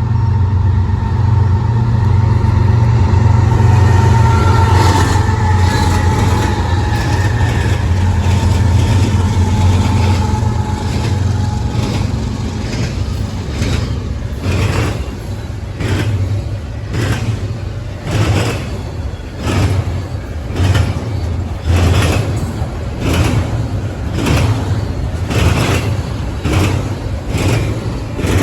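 Diesel locomotive passing close, its engine a loud low drone, followed by the train's cars rolling by, with wheels clicking over rail joints about once a second.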